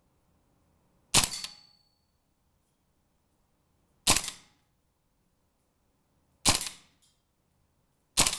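Gas blowback airsoft rifle (PTS Mega Arms MKM AR-15) fired four times in slow, aimed single shots, each a sharp crack from the gas release and bolt cycling that dies away quickly, a couple of seconds apart.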